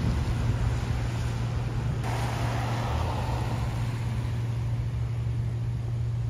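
Medical helicopter's rotors and engine droning steadily as it comes in to land on a rooftop helipad.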